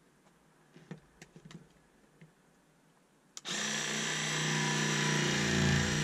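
DeWalt cordless jigsaw held against wood siding: a few light handling clicks, then about three and a half seconds in the saw starts suddenly and runs steadily as it cuts into the siding.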